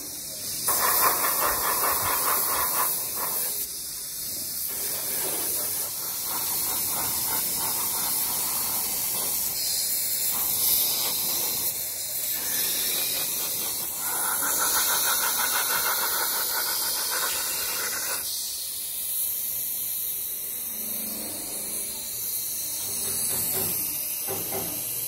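Compressed-air paint spray gun hissing as it sprays black paint onto a spin-dryer motor housing, easing off briefly a few times.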